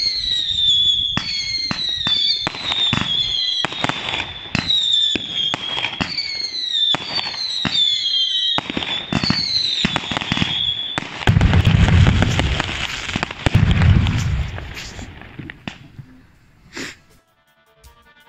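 Firework battery firing a rapid string of shots, each a falling whistle with a pop, about one a second. Then a dense crackling with two deep booms takes over and dies away near the end.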